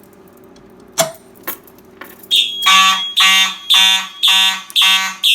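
Two sharp clicks, then about two seconds in fire alarm horns start sounding in march time: loud, even blasts a little under two a second. The slow, mildly wonky beat, 110 beats per minute instead of the standard 120, comes from the panel's poor relays.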